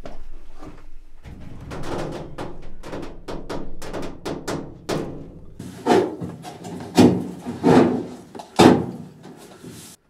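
Sheet-metal casing panels of a tumble dryer being shifted and pulled off: a fast run of clatters and knocks, then four louder bangs, each with a short metallic ring, in the second half.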